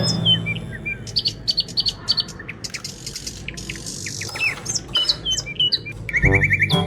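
Birds chirping and tweeting in short high calls and quick whistled glides, with a few clicks; near the end a fast trill leads into music coming back in.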